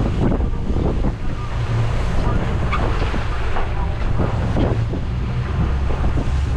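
A boat's engine drones steadily while wind buffets the microphone and rough waves splash against the hull.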